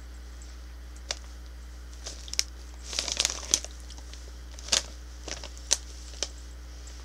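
Shiny foil-lined snack bag of cheese curls crinkling as it is handled and turned over, in scattered crackles that come thickest about three seconds in.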